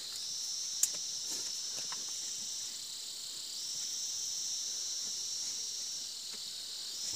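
Insects trilling steadily in a high, even buzz that breaks off for a moment twice. A single sharp click sounds about a second in.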